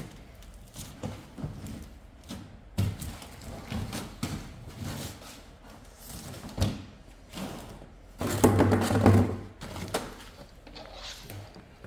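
Handling noise from cardboard and wood: scattered light knocks and thunks, with a louder scrape lasting about a second, some eight seconds in.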